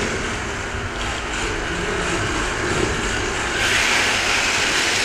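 FRC competition robot's electric drive and launcher motors running steadily in a continuous whir, with a brighter, higher hiss joining about three and a half seconds in.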